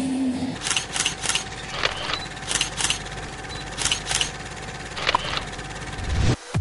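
Sound effects of an animated TV news bumper: a steady low rumble with a faint held tone, crossed by about ten short, sharp electronic clicks, ending in a deep boom near the end.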